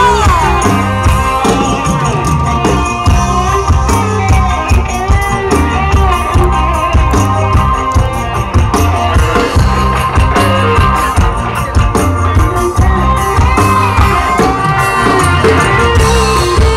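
Live dangdut koplo band music with a woman singing over a pulsing drum and bass beat.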